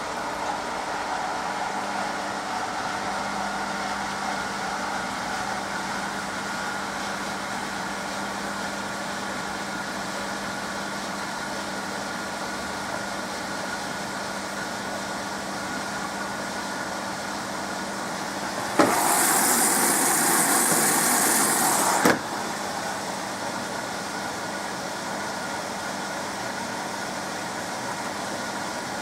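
SMEG 11 kg washing machine running with a steady motor hum. About two-thirds of the way through, a loud hissing rush starts abruptly, lasts about three seconds and cuts off suddenly.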